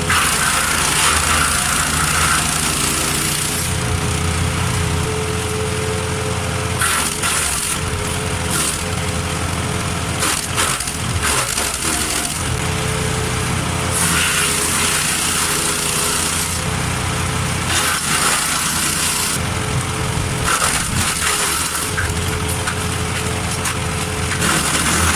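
Petrol-engined garden wood chipper running steadily while branches are fed through it, the shredding noise swelling and easing every few seconds as the wood is chipped.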